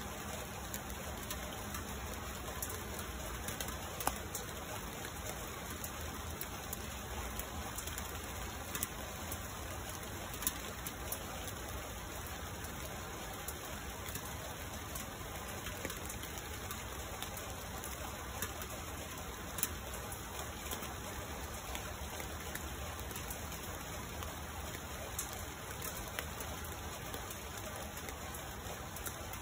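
Steady rain falling on leafy tree foliage: an even hiss dotted with the sharper ticks of single drops landing close by.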